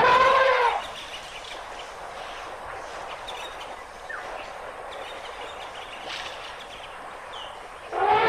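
An elephant trumpets in a short loud blast, then a steady outdoor hiss with a few faint bird chirps. Near the end a second elephant trumpet call begins.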